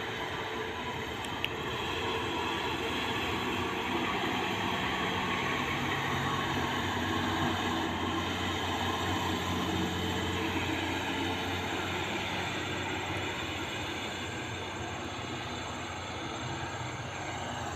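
Highway traffic: a heavy cargo truck's engine and tyres droning as it passes along the toll road below with a car. The sound swells to its loudest about halfway through, then slowly fades.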